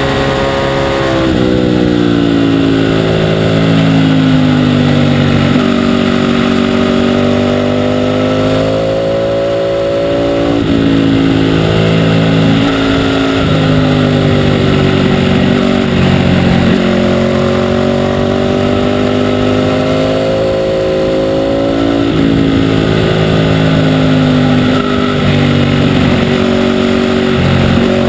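Ducati 848's 849 cc L-twin engine at racing speed, its note climbing, breaking off and dropping again several times as the bike accelerates, shifts and slows through the corners.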